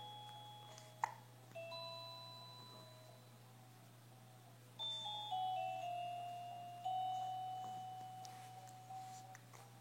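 Slow, sparse music of ringing, bell-like notes, a few at a time, each sounding and then slowly dying away, over a steady low hum. A sharp click sounds about a second in.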